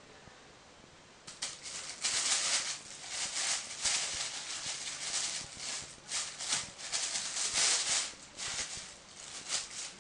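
Thin plastic bag crinkling and rustling in irregular bursts as a kitten plays in it, starting about a second in and tapering off near the end.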